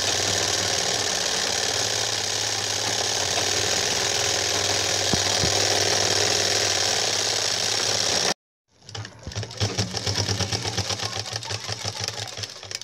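Sewing machine running fast, stitching cloth with a steady, rapid needle action. The sound cuts off suddenly about two thirds of the way in, then picks up again as quick, evenly spaced needle strokes.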